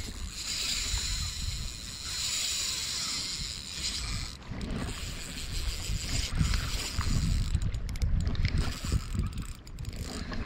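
A Daiwa Fuego 3000 LT spinning reel being cranked to retrieve a surface lure, its gears and rotor whirring. Gusts of wind rumble on the microphone in the second half.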